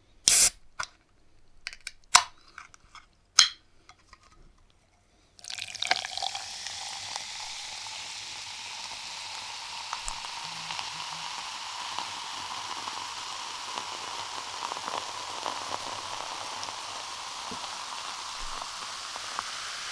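Canned cola poured into a glass over ice: several sharp clicks in the first five seconds, then a steady fizzing pour starting about five seconds in, its tone rising slightly as the glass fills.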